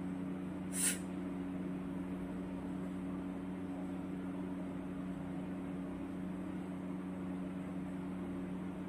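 Steady machine hum with two low steady tones over a noisy hiss, and one short sharp hiss about a second in.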